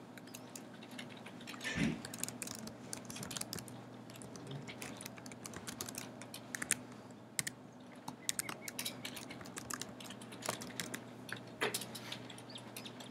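Laptop keyboard keys clicking in quick irregular runs as text is typed.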